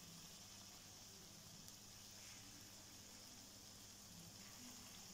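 Faint, steady sizzle of potato bites deep-frying in hot oil in a frying pan, with a low steady hum underneath.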